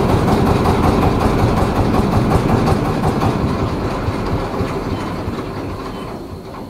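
Tour boat's engine running loud with a fast, even beat, dying down over the last couple of seconds as the boat nears a landing.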